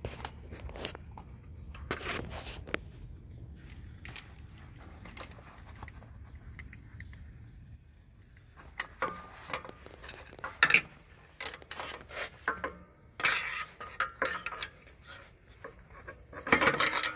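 Scattered metallic clinks and scrapes of locking pliers and a pry bar working a brake shoe return spring on a truck's drum brake, growing busier in the second half with a louder cluster of clatter near the end.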